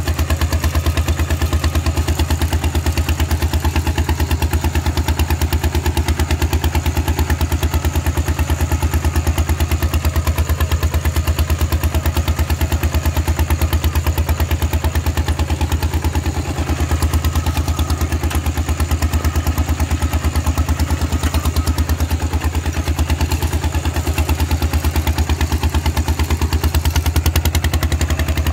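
Single-cylinder diesel engine of a two-wheel walking tractor running under load through a loud, open straight exhaust pipe while plowing. It gives a rapid, steady, even popping beat, with a brief dip in level about two-thirds of the way through.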